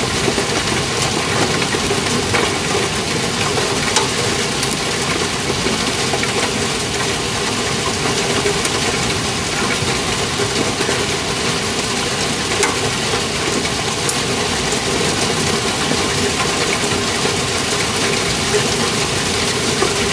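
Hail and rain coming down steadily in a dense, even noise, with sharp ticks of individual hailstones striking.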